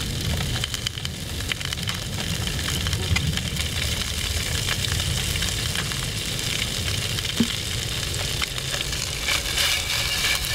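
Freshly caught grayling frying in oil in a pan: a steady sizzle with many small crackles, over a continuous low rumble.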